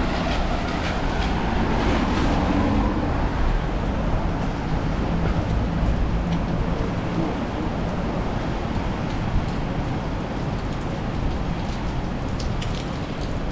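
Street noise in a typhoon: a steady, dense rush of rain and wind, with road traffic running through it.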